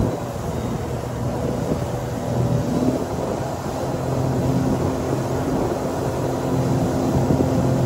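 Boat motor running steadily at an even pitch, a low hum.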